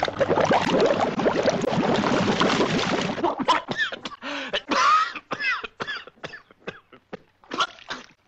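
Water churning and bubbling for about three seconds, then a string of short coughing, gargling sputters with sliding pitch: a cartoon boat choking on water, made by a person.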